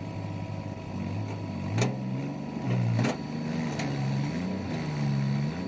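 Diesel engine of heavy machinery running, its pitch repeatedly rising and falling as it revs and takes load, with two sharp knocks about two and three seconds in.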